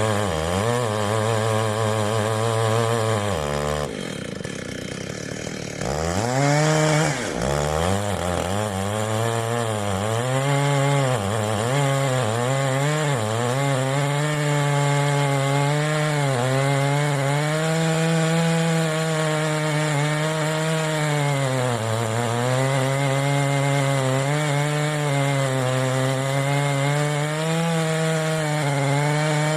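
Ported Stihl MS880 two-stroke chainsaw with a dual-port muffler running hard in a wood cut, its pitch wavering as the chain loads up. About four seconds in the revs drop off for a couple of seconds, then it revs back up and keeps cutting.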